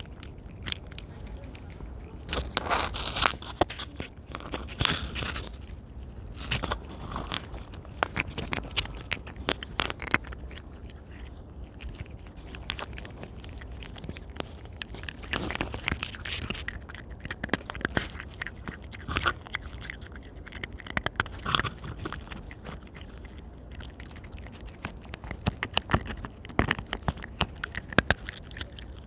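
Close-up eating of a soft ripe persimmon (hongsi): irregular wet chewing and biting sounds, many small smacks and clicks, with denser clusters of bites every few seconds.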